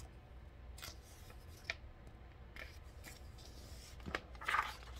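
Paper pages of a large picture book being handled: a few faint taps and rustles, then a brief louder rustle near the end as a page is turned.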